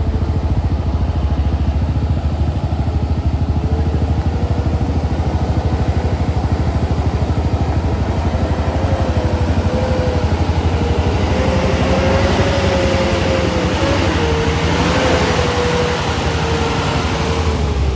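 Isuzu light truck's diesel engine labouring up a steep dirt climb in low gear, growing louder as it comes close. A whine wavering in pitch sits over it from about three seconds in.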